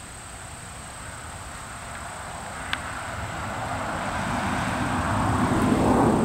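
A vehicle going by: a rushing noise that swells over several seconds to a peak near the end. Under it, insects chirr steadily at a high pitch.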